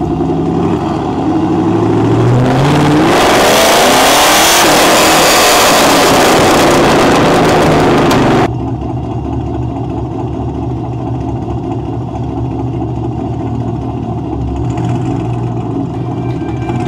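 Fifth-generation Camaro SS 6.2-litre V8 accelerating hard with a loud exhaust, its pitch climbing and then falling as it passes close by. It cuts off abruptly about eight seconds in to a steadier, quieter engine drone heard from inside a moving car.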